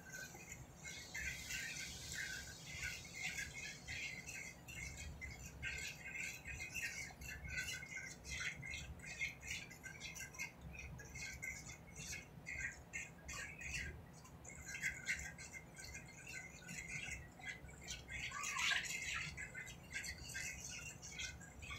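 Faint crackling and sizzling in a skillet of flour-coated onions as cold water is poured in and stirred into a gravy, a little louder near the start and again near the end.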